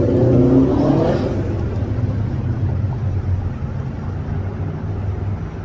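A motor vehicle's engine running close by, its pitch rising briefly in the first second as it pulls away, then a steady low engine hum of street traffic.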